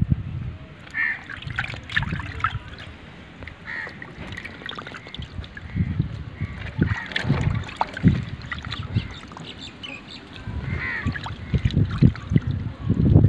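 Water sloshing and splashing in a clay pot as hands scrub small fish clean, with wet fish set down on stone. Birds call a few times in the background.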